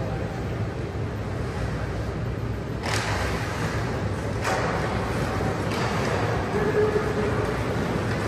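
Ice hockey game in an arena: a steady low rumble of the rink, with sudden sharp scrapes and knocks of play on the ice about three seconds in and again a second and a half later.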